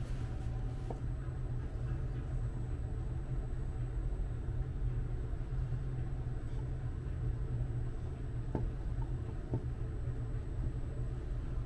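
Steady low rumble of background room noise, with a few faint light clicks about a second in and again near the end.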